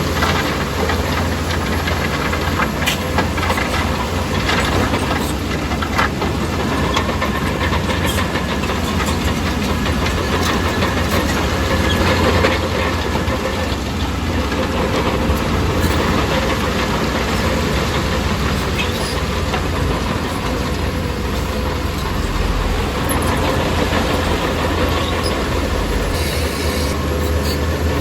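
Bulldozer's diesel engine running steadily at work, with the clanking and rattling of its steel tracks.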